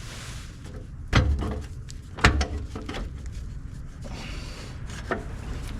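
Metal clunks and knocks of a heavy diesel starter motor being worked loose from the engine after its bolts are out, with two loud knocks about a second and two seconds in and a lighter knock near the end.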